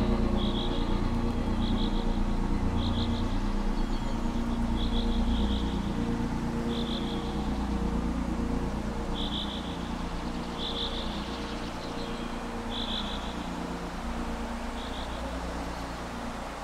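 Ambient soundscape: a low steady drone with a hum, overlaid by short high trilled chirps about once a second. The whole slowly fades toward the end.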